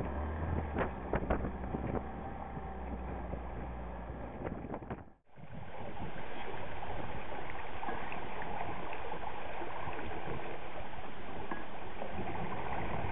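Wind buffeting the microphone and water splashing on choppy water around a small boat under way. A steady low hum and a few knocks run through the first few seconds. The sound cuts out briefly about five seconds in and comes back as a steadier, louder rush of wind.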